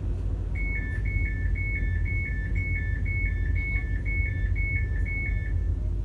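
Class 331 CAF Civity train's door warning beeper sounding a two-tone high-low beep, about ten pairs at roughly two a second, over the steady low hum of the train's equipment as it stands at the platform.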